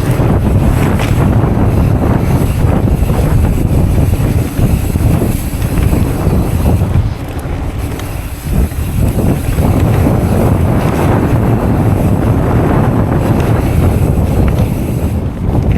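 Wind buffeting a chest-mounted camera's microphone while riding a mountain bike, a loud steady rumbling rush that eases briefly about halfway through.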